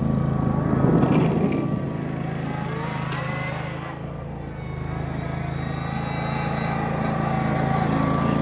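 Small tractor's engine running as it plows snow. The engine sound dips for a couple of seconds around the middle, then builds back up.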